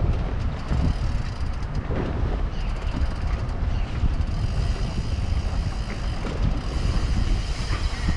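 Wind buffeting the microphone on a small boat out on choppy open water, a steady low rumble that rises and falls constantly.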